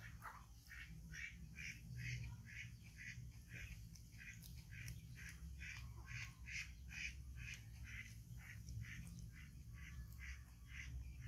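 An unseen animal calling in a rapid, even series of short high-pitched notes, about three a second, over a low steady hum.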